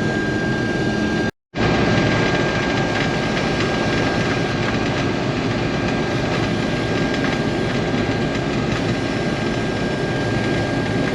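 Case IH combine running steadily while cutting wheat: a dense machine drone with a thin, steady high whine over it. The sound drops out completely for a moment about a second and a half in, then resumes unchanged.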